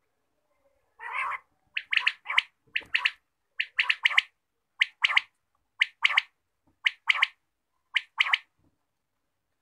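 Batair (quail) calling: one harsher note, then a series of short, sharp calls in clusters of two or three notes, about one cluster a second.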